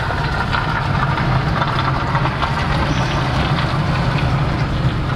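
A car's engine and tyre noise running steadily, heard from inside the cabin.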